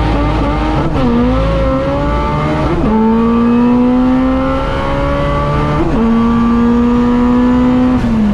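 Drag race car's engine at full throttle down the strip. It climbs in pitch through the gears, with upshifts about one, three and six seconds in, and lifts off at the end as the revs fall away.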